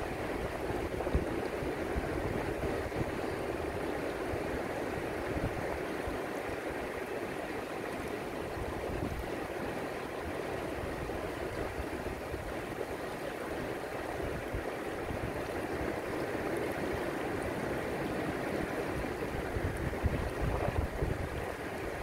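Shallow ocean waves washing over a rocky reef shelf and sand at the water's edge, a steady rushing wash of surf. A few louder low rumbles near the end.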